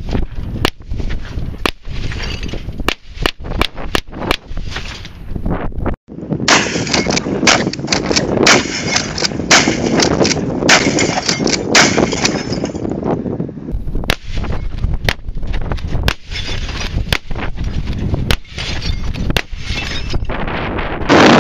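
A long string of gunshots in quick succession from a 12-gauge pump-action shotgun fired at a CRT television, with a steady wind rush between shots. The sound cuts out for an instant about six seconds in.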